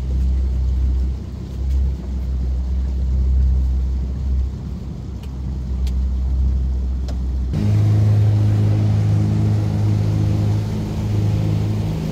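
Motorboat engine running steadily underway, a low drone; about seven and a half seconds in the drone jumps suddenly to a higher, louder pitch.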